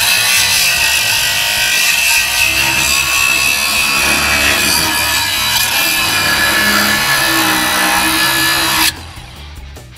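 Thermal Dynamics Cutmaster 42 plasma cutter cutting steel trailer bracketry: a loud steady hiss with a high whine. It starts abruptly and cuts off suddenly about nine seconds in.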